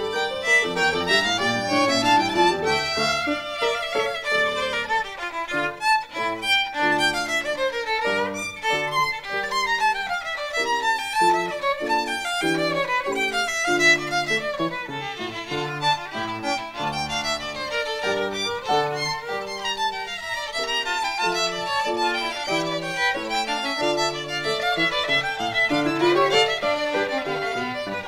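Two violins playing a fast classical duet with piano accompaniment, full of quick runs of notes rising and falling over steady lower piano notes.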